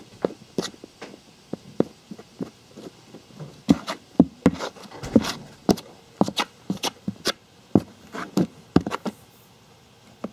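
A small scoop digging and scraping through loose, crumbly beetle-rearing soil, with clumps dropping back. It comes as an irregular string of sharp crunches and scrapes, busiest in the middle, and stops about a second before the end.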